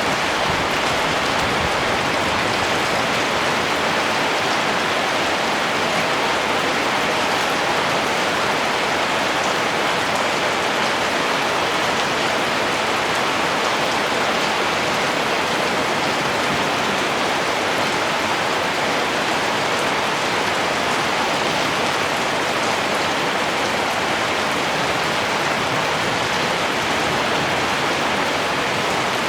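Heavy rain falling steadily, an even, unbroken hiss of rainfall.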